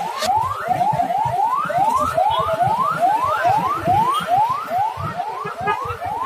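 Electronic emergency-vehicle siren on a fast yelp: short rising sweeps repeating about three times a second, with a second siren overlapping at moments, over a low rumble.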